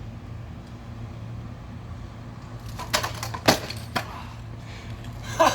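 Stunt scooter on asphalt: a few sharp clacks about three seconds in and over the following second, the deck popping off the ground and the wheels landing a flat-ground quad whip, over a steady low hum.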